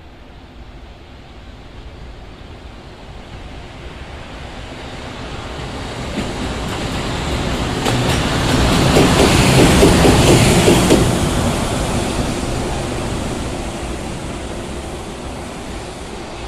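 A train passing close by: a rushing rumble and hiss that builds steadily, peaks about ten seconds in, then fades away.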